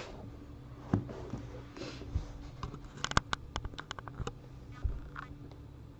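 Light handling noise of trading cards and their plastic holders: scattered taps, with a quick run of small clicks about three seconds in.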